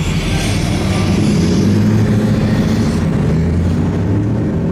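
Truck engine running loudly with a deep, steady drone that swells slightly around the middle.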